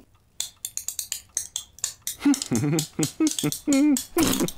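A child's mouth noises: a rapid run of irregular tongue clicks, then short warbling voiced sounds, and a spluttering raspberry near the end. It is her own new trick in place of whistling.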